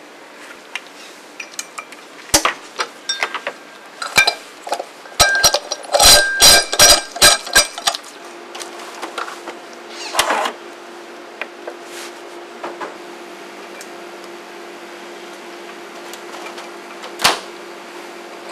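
Plastic lab equipment being handled on a bench: scattered clicks and knocks, with a quick run of sharp clacks around the middle. A steady hum comes in about halfway, with a few single knocks over it.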